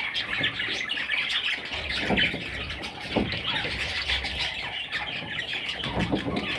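A group of pet budgerigars chattering and warbling non-stop, with a few sharper squawks about two and three seconds in and again near the end.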